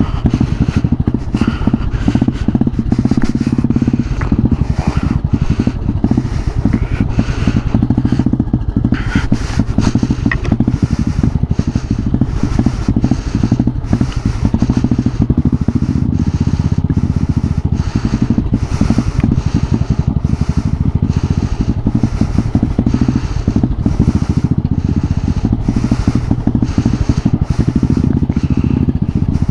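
Motorcycle engine running steadily while riding a rough dirt trail, with rattles and knocks as the bike goes over bumps.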